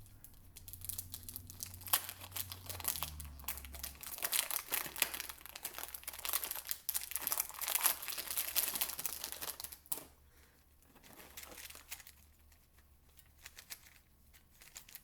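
Dense plastic crackling and clicking from handling and turning a new, unlubricated 3x3 speed cube, thinning out to scattered clicks about ten seconds in; its owner thinks a little lube would make it turn better.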